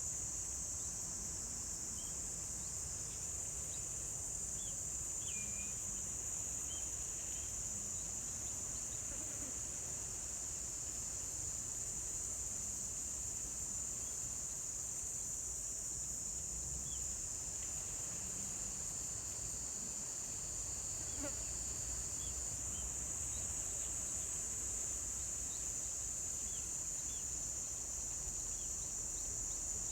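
Insects trilling: a continuous, steady high-pitched buzz, with short faint chirps now and then.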